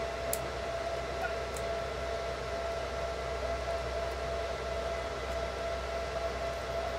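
Steady background hum with a thin, constant high whine, and a couple of faint clicks in the first two seconds.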